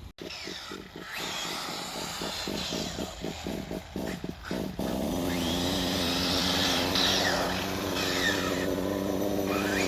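Small nitro (glow-fuel) RC car engine, running unevenly in pulses at first and then idling steadily about five seconds in.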